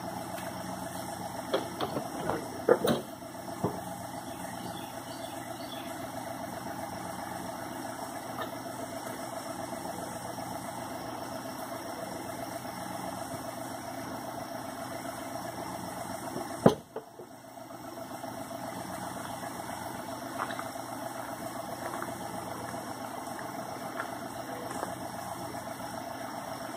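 Truck engine idling steadily while it supplies power through jumper cables, with a few sharp clicks in the first few seconds and one loud click about 17 seconds in, after which the sound briefly drops before the idle carries on.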